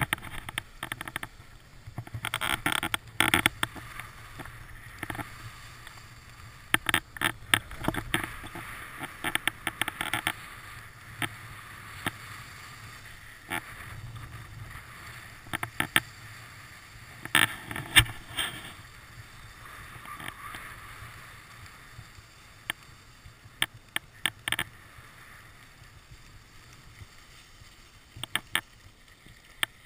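Skis sliding downhill on groomed snow: a hissing scrape that swells and fades with the turns, broken by many sharp clicks and knocks.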